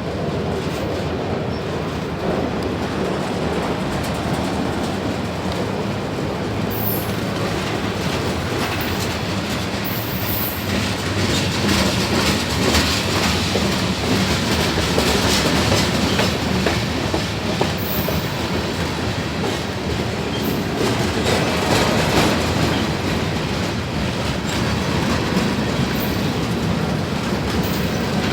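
Freight train cars rolling past at close range, wheels clacking steadily over the rail joints, with several short, high-pitched wheel squeals scattered throughout.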